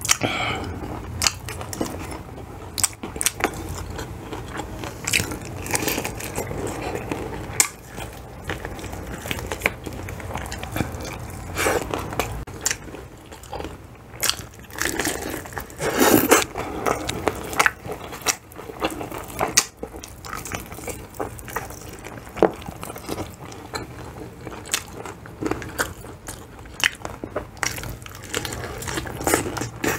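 Close-miked biting and chewing of crispy spicy fried chicken dipped in gravy: irregular crunches of the breaded skin with wet chewing between them.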